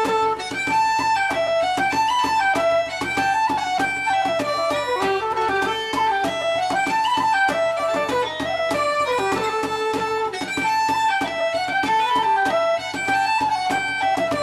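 Live instrumental Irish traditional tune: a fast, ornamented melody with accompaniment, played continuously.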